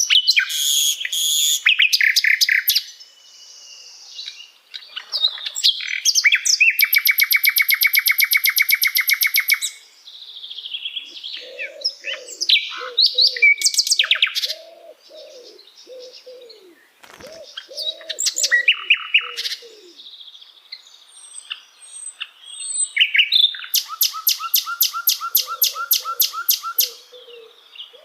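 Common nightingale singing: varied phrases of whistles and chirps broken by long, loud, rapid trills of repeated notes, with series of low repeated notes in the middle and near the end.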